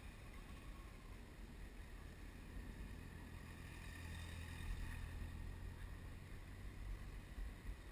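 Faint, steady low rumble of a Yamaha FZ-1's inline-four engine running at low revs through slow, tight turns, mixed with wind on the microphone.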